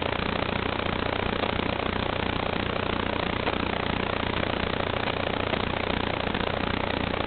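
Steady, even hiss with a low hum underneath: static on the audio channel of an analog FPV video-link recording, with the quad's motors stopped.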